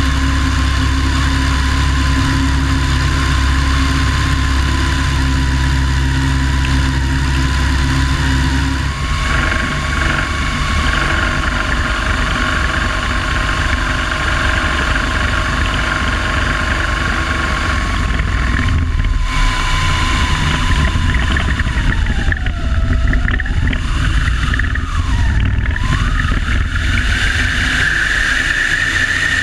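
De Havilland Tiger Moth biplane in flight, its four-cylinder inverted inline engine and propeller droning steadily under slipstream wind rushing past the wing-mounted microphone. The engine note shifts about a third of the way in, sags and recovers in pitch twice during a steep manoeuvre about three-quarters through, then rises near the end.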